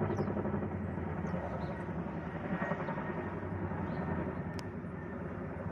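Tandem-rotor helicopter overhead: a steady low drone of its two rotors, fading slightly.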